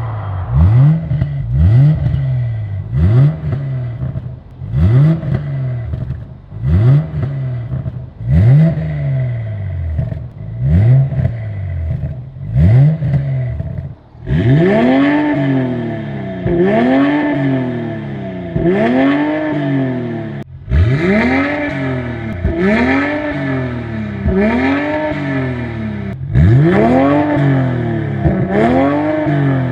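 BMW 840i's turbocharged 3.0-litre inline-six through an ARMYTRIX turbo-back Valvetronic exhaust, revved over and over: quick blips about once a second, then from about halfway in, longer and higher revs about every two seconds. Sharp cracks from the exhaust sound among the revs.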